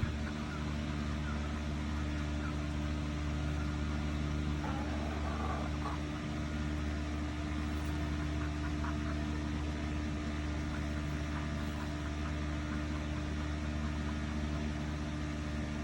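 A steady low mechanical hum, with a few faint soft clucks from a Rhode Island Red hen about five and nine seconds in.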